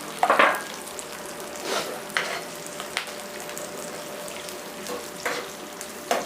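Chunks of onion frying in a little hot oil in a pan with ginger, garlic and green chillies, sizzling steadily, while a spatula scrapes and knocks against the pan every second or so, hardest just after the start.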